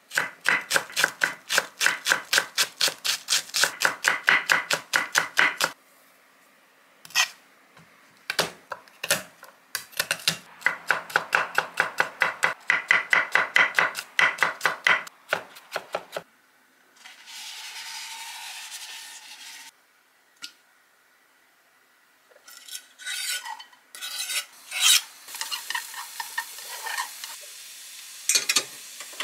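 Chef's knife chopping green onions on a wooden cutting board in two long runs of quick, even strokes, with a few single cuts between them. A few seconds of hissing follow, and then irregular knocks and clatter of kitchenware near the end.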